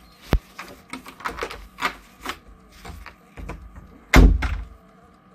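A run of irregular knocks and taps, about two a second, with one loud, heavy thump about four seconds in.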